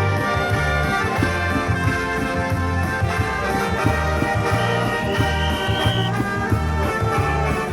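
A live funeral band playing: brass instruments carry a tune over a steady, regular drum beat, with one high held note in the middle. The recording has poor sound pickup.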